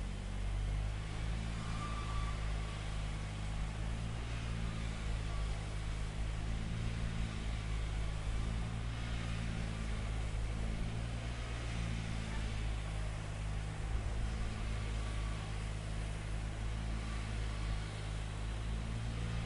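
A large engine running steadily at low speed: an even low drone with a light hiss over it.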